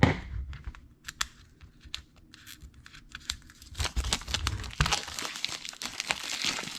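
Packaging of a small product box being torn open and crinkled: scattered clicks and rustles at first, becoming denser tearing and crinkling from about four seconds in.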